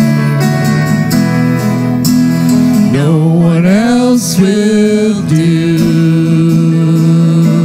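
Live worship band playing a slow praise song: a sung melody with held notes over acoustic guitar, bass and drums, with an upward slide in the melody about three seconds in.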